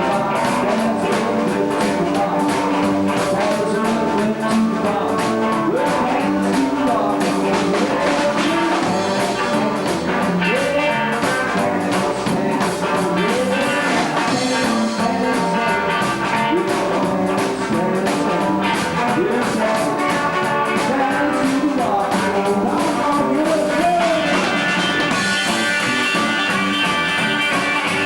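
Live rockabilly band playing a rock and roll number, with electric guitar and drums, the guitar full of bent notes.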